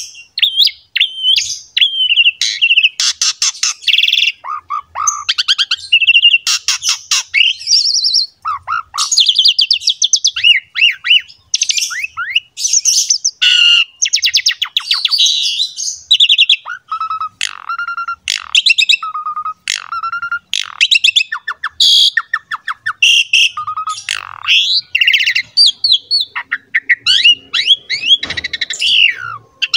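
Pied starling (jalak suren) singing a long, varied song in full voice: clear whistles, fast chattering and clicking runs, and harsh rasping notes follow one another with only short gaps.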